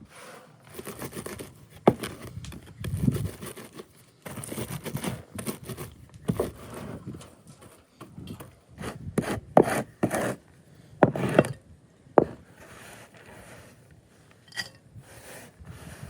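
Irregular scraping and rubbing, with several sharp knocks spaced unevenly through it.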